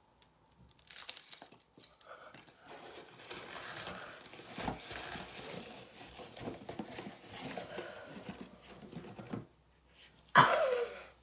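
Packing peanuts and packaging rustling and crinkling as hands rummage through a box, irregular with many small clicks. About ten seconds in, a short, loud exclamation that falls in pitch.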